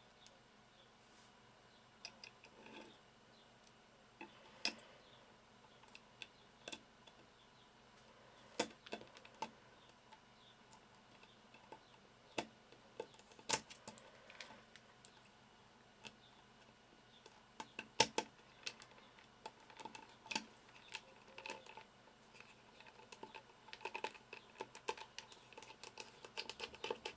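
Faint, irregular clicks and taps from a small screwdriver and the plastic and metal parts of a BlackBerry Curve 8520 being handled while a screw is fitted. The clicks come closer together near the end.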